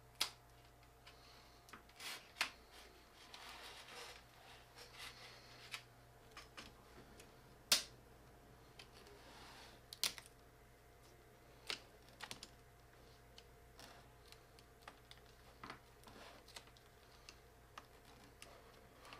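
Plastic snaps of a 13-inch plastic MacBook's LCD bezel clicking loose one at a time as a small flat-blade screwdriver pries along the edge, with faint scraping of the blade against the plastic between the clicks. Two clicks about two seconds apart, near the middle, are the loudest.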